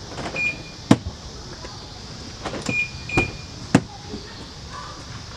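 A car being handled: three sharp clicks or knocks, with short high electronic beeps in between, from the car's doors or controls and its chime.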